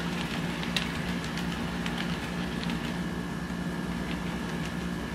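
HO scale model diesel locomotive running past with a steady motor hum, occasional light clicks from the wheels on the track.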